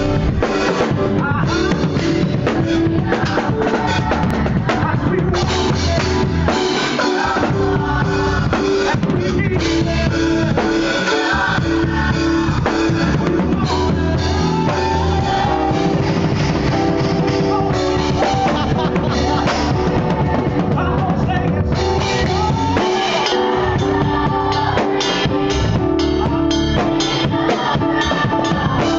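Acoustic drum kit played live, with snare, bass drum, toms and cymbals, over a band holding sustained notes underneath.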